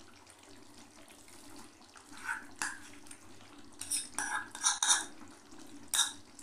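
Thick onion-and-cashew paste being scraped out of a bowl into a pan of chicken curry: a few short scrapes and light clinks against the bowl and pan, the first about two seconds in, over a faint steady background.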